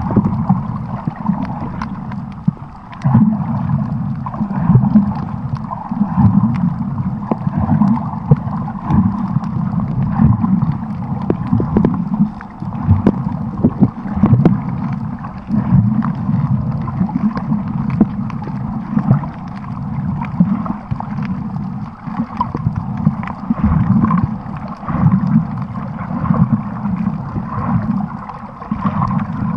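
Muffled water noise picked up by a camera held underwater while snorkeling: an uneven sloshing, gurgling rumble with many small clicks scattered through it.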